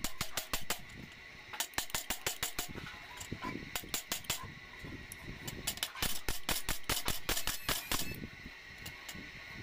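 Hammer striking a steel bucket braced over a thick steel cylinder: runs of sharp metallic blows, several a second, with short pauses between runs.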